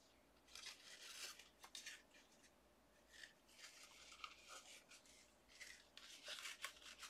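Faint, scattered rustling and rubbing of lacy embroidered fabric and a paper tag being handled.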